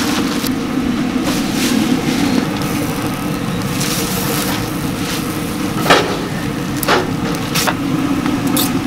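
Wooden fish-cake skewers clacking against a steel tray of hot broth, a few sharp knocks in the second half, the first the loudest, over a steady low rumble.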